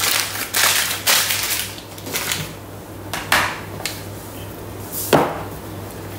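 Kitchen knife tapping and scraping on a chopping board as cold butter is cut up, a quick run of knocks in the first two seconds. Then a few scattered knocks and clicks of kitchen items, the loudest about five seconds in, over a low steady hum.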